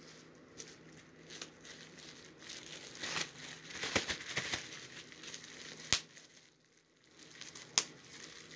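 Plastic bubble-wrap pouch crinkling and crackling as it is handled and opened, with a few sharp clicks, the loudest about six seconds in.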